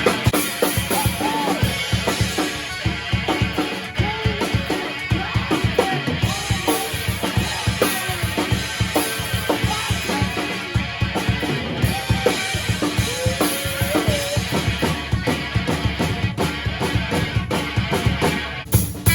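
Rock band music led by a busy drum-kit beat of kick and snare, with a wavering melody line over it.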